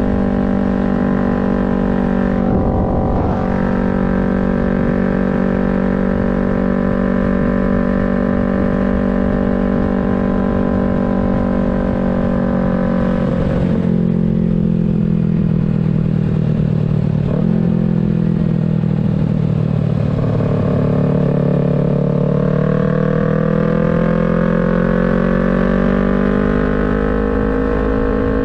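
Yamaha MT-03's parallel-twin engine and exhaust under way at steady revs. There are short breaks in the note near 3 s and again near 14 s, like a gear change or a roll-off of the throttle. After that the engine speed sags for several seconds, then climbs steadily as it accelerates near the end.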